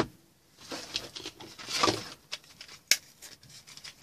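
Rustling and crinkling of a plastic blister pack of coin-cell batteries being picked up and handled, with a short click at the start and a sharper click about three seconds in.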